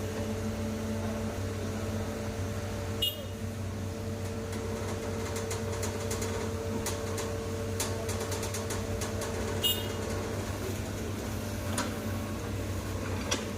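Excavator's diesel engine running steadily with a constant low hum. A higher steady tone stops about ten seconds in, and there are a few sharp clicks.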